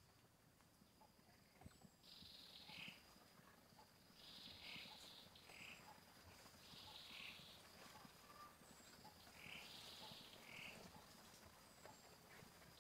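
Faint forest ambience: a raspy two-part call, a hiss followed by a shorter lower one, repeats every two to three seconds from about two seconds in, over a steady high thin whine and a few faint high chirps.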